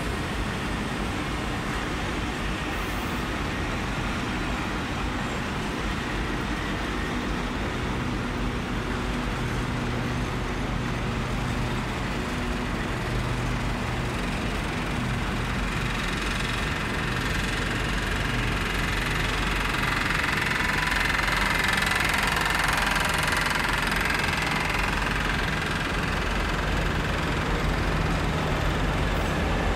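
Vintage diesel locomotive engines running with a steady low throb, growing somewhat louder in the second half.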